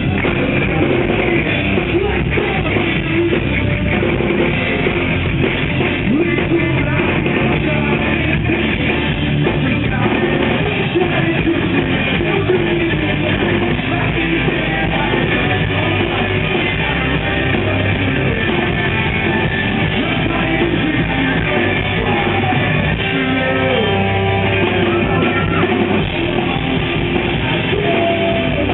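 Rock band playing live: electric guitars and a drum kit with a male lead vocal singing at the microphone.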